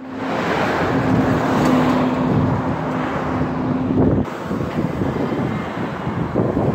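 Street traffic: a motor vehicle passing close by, with a steady engine hum that cuts off abruptly about four seconds in. Traffic noise swells again near the end.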